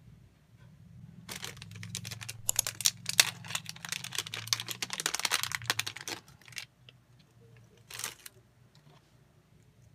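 Thin clear plastic packaging crinkling and crackling as a small keychain is unwrapped by hand, in dense quick crackles lasting about five seconds, then one brief rustle near the end.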